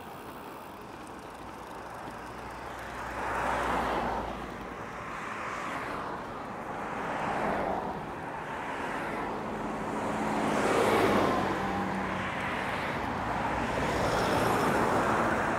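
Road traffic passing close by, one vehicle after another, each swelling and fading away with tyre and engine noise.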